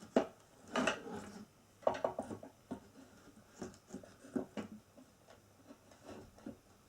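Light irregular knocks, clicks and rattles of flat-pack chair parts being handled and turned around, a few a second, loudest in the first two seconds.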